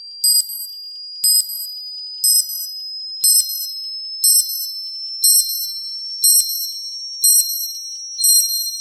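Countdown-timer sound effect: a short, high-pitched bell-like ping once a second, nine times, over a steady high tone that slowly rises in pitch.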